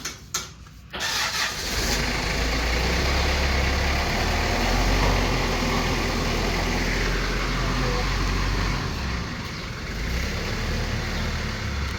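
A motor vehicle engine running steadily, a loud low rumble that starts about a second in.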